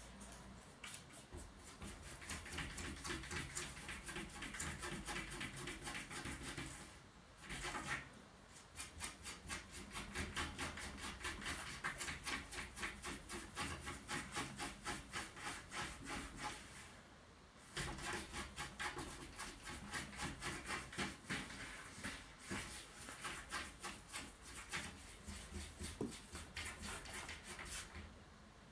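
A cat clawing at a closed door, making rapid scratching strokes in long runs with two short pauses: the cat wants to be let out.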